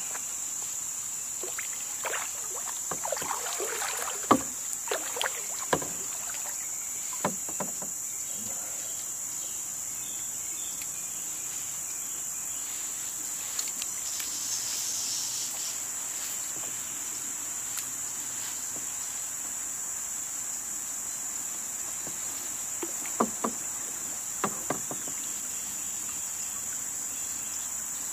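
Cicadas buzzing steadily in one high-pitched drone, with a few sharp knocks and clicks from the kayak and its gear, a cluster of them a few seconds in and again near the end.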